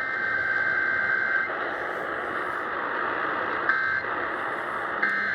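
Emergency Alert System digital data tones heard over a radio. A burst of warbling two-pitch tones runs through the first second and a half, then two short bursts come about a second apart near the end, all over steady radio noise.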